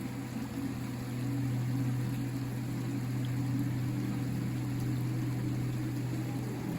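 River water flowing steadily, a low, even rushing sound with most of its weight in the bass, growing slightly louder about a second in.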